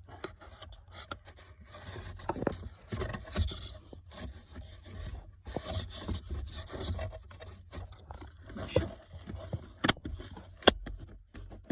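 Plastic frame of a cabin air filter scraping and rubbing as it is pushed into its plastic housing, with irregular knocks and clicks. Near the end a sharp snap, loudest of all, as the housing lid clicks into place.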